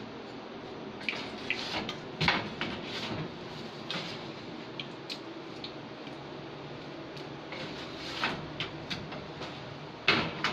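Scattered light knocks and clatters of tools and a baking tray on a steel worktable, over a steady background hum.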